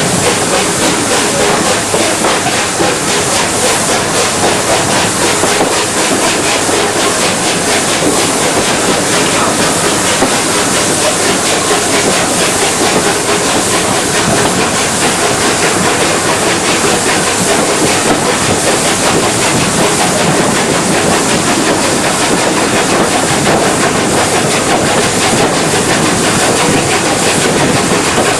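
A train running along the rails, a steady loud rumble and clatter of wheels on track.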